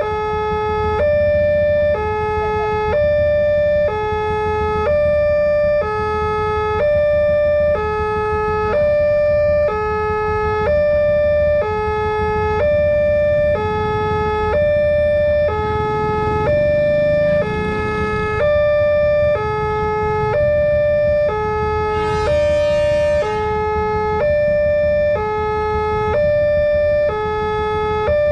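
Railway level-crossing alarm on an NP-type crossing sounding its two-tone warning: a lower and a higher tone alternating about once a second. Road-traffic rumble lies beneath it, swelling about halfway through, with a short rush of noise a little later.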